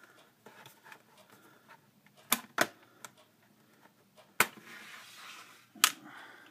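Sharp plastic clicks of a multi-disc CD jewel case being handled: two close together a little over two seconds in, then single louder clicks about four and a half and six seconds in, with a faint rustle between them.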